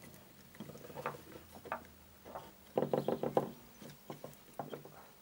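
Hands working a new rubber gasket into the groove of a Honda NTV 650's aluminium valve cover: scattered light knocks and taps with some rubbing, a quick cluster of knocks about three seconds in.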